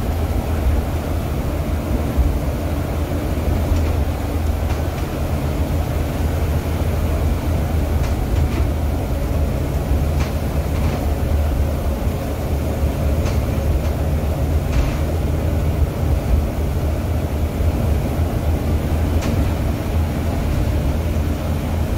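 Interior noise of a Volvo B9TL double-decker bus on the move, heard from the upper deck: a steady low drone of the diesel engine and road, with a few faint clicks and rattles from the body now and then.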